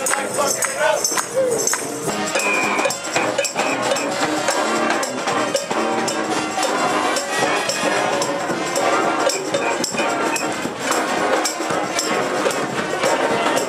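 Marching street band playing, with pitched instruments over a steady percussion beat and jingling hand percussion.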